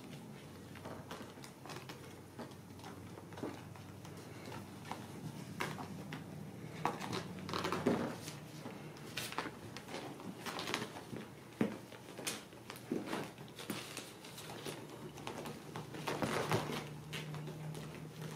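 Ragdoll kittens scrambling over an upholstered sofa: their claws scratch and catch on the fabric, with scattered soft thumps and rustles, over a faint, steady low hum.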